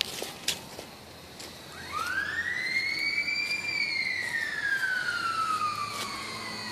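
Siren wail: a single tone rises steeply for about a second and a half, then falls slowly and keeps sounding. A few handling clicks come at the start.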